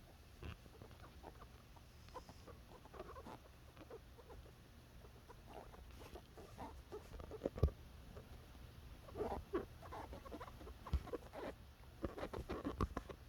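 Faint snoring and snuffling of a sleeping animal, in short clusters every few seconds.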